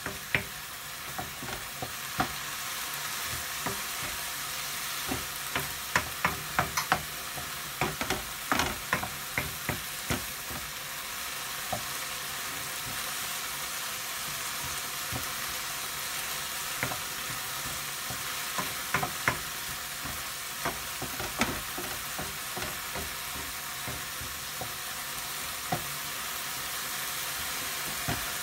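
Chopped onions and red chilli sizzling steadily in a frying pan while a wooden spoon stirs them, knocking and scraping against the pan in clusters of clicks, busiest from about five to nine seconds in and again around twenty seconds.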